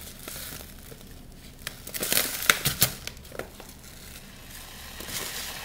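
Plastic packaging crinkling and rustling as it is handled, with a few sharp crackles about two to three seconds in.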